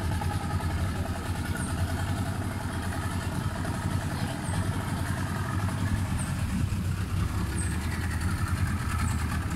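Outboard motor of a small tour boat running steadily, a low even hum.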